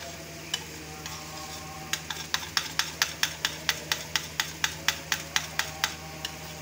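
Metal spoon clinking against the sides of a bowl as yogurt and food colour are stirred briskly: a few scattered clinks, then a quick, even run of about five clinks a second starting about two seconds in, over a steady low hum.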